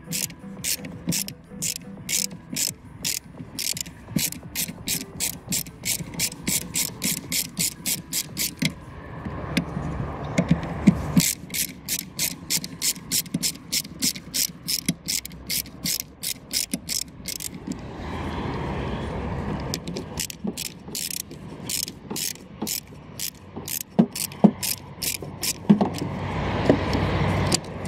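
Ratchet wrench clicking as it turns out the wiper linkage bolts, at about three clicks a second. The clicking comes in three runs with short pauses between them.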